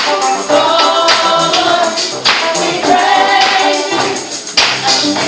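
Youth choir singing a gospel praise song with a tambourine shaken and struck in rhythm.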